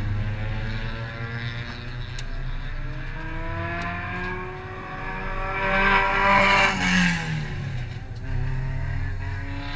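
Race car engines running at speed on the circuit, their notes slowly climbing in pitch. One car passes close about six seconds in, the loudest moment, its pitch dropping as it goes by.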